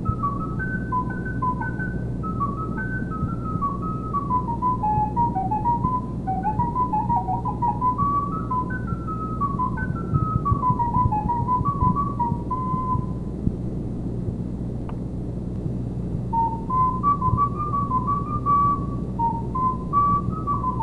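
Solo recorder playing a melody of short, separate notes, breaking off for about three seconds partway through and then starting again, over a steady low hum.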